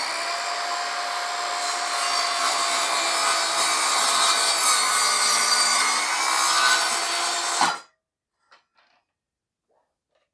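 Evolution R185SMS 18V cordless sliding mitre saw cutting softwood stud timber, its motor running steadily under load without bogging down. The saw stops abruptly about eight seconds in, as the blade brake halts the blade almost instantly. A few faint clicks follow.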